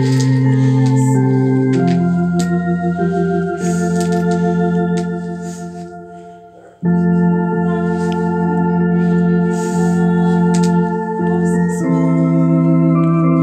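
Two-manual electronic home organ played with both hands: sustained chords that change every second or two. The sound fades away about six and a half seconds in, then a new chord starts abruptly and the playing carries on.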